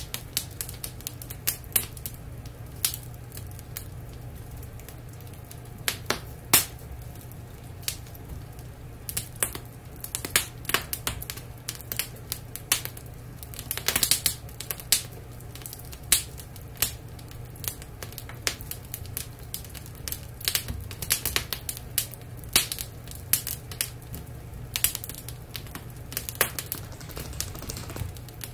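Wood fire in a fireplace crackling, with sharp irregular pops, some much louder than others, over a steady low hum.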